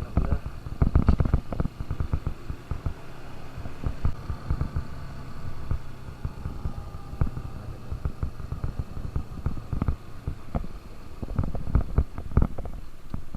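KTM RC 200's single-cylinder engine running steadily at riding speed, with irregular gusts of wind noise on the microphone, heaviest at the start and again near the end.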